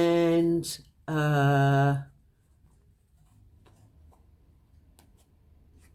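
A woman's voice holding a drawn-out "and", then a steady hummed hesitation sound of about a second, lower in pitch. After that, quiet room tone with a few faint clicks.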